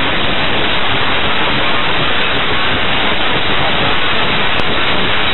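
Steady, even hiss of radio static on an air traffic control frequency recording, with no transmission on the channel.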